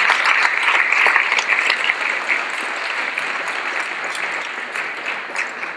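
Audience applause: many people clapping, loudest at first and gradually tapering off toward the end.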